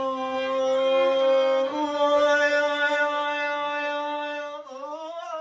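Violin playing long held notes in a slow Arabic improvisation, stepping up to a higher note about two seconds in and breaking into wavering, sliding ornaments near the end.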